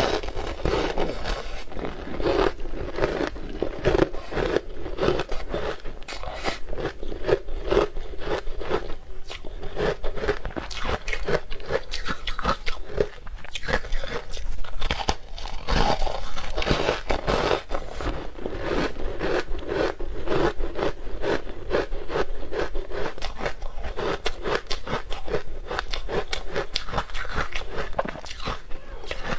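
Close-miked crunching and chewing of green sweet ice: a long, continuous run of crisp crunches as frozen chunks break between the teeth.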